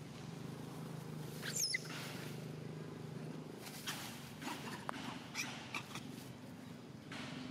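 Macaques calling: a high squeal that falls sharply in pitch about a second and a half in, then short high chirps, with rustling as they run through leafy ground cover. A low steady hum runs under the first half and stops midway.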